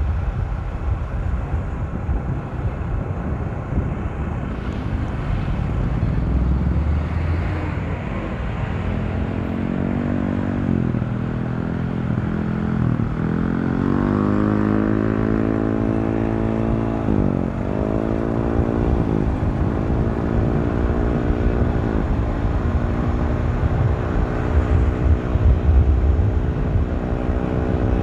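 Honda CBR150R's single-cylinder engine accelerating hard through the gears. Its pitch climbs, then drops at each of several upshifts, under heavy wind noise on the microphone.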